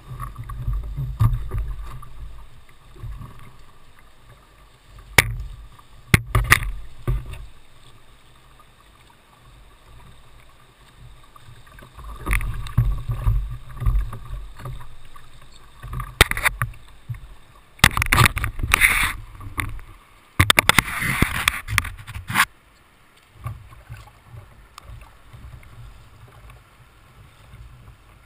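Whitewater rushing and splashing against a Jackson Coosa kayak's hull and deck as it runs a rapid, with a low rumble and irregular loud splashes. A cluster of heavy splashing comes past the middle, then it settles to a quieter wash of moving water near the end.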